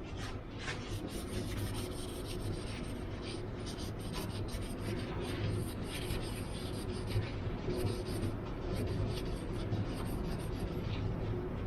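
Continuous scratchy rubbing on wood as linseed oil is worked into a wooden awl handle, with small ticks throughout.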